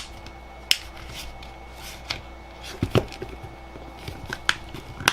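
Irregular sharp clicks and knocks of hard plastic parts being handled and pressed together, as a laptop battery's plastic casing is pushed to close over the reassembled cells and will not snap shut.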